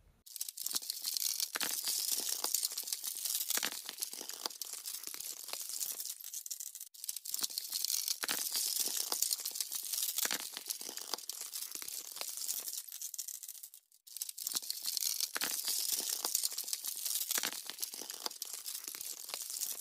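Edge banding being peeled off particleboard by a tensile tester: a continuous crackling tear full of small snaps as the PUR hot-melt glue bond gives way and strings. There are brief breaks about 7 and 14 seconds in.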